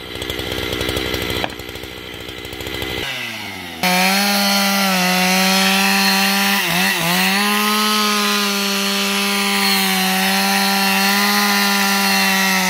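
Husqvarna 272XP two-stroke chainsaw at low revs, then opened up to full throttle about three seconds in, cutting steadily through a tree trunk at high revs for the felling back cut. The pitch dips briefly once about halfway and drops as the throttle is released at the very end.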